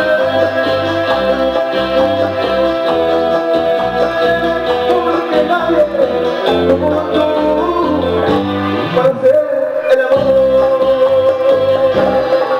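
A male singer sings with a live band through a PA system, holding long notes over a stepping bass line.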